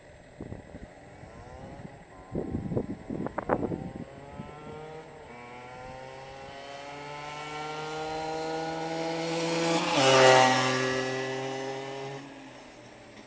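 Gilera motorbike engine approaching, its note rising in pitch and growing louder. About ten seconds in it passes close, with a sudden drop in pitch, then fades away. A few knocks and rattles come in the first few seconds.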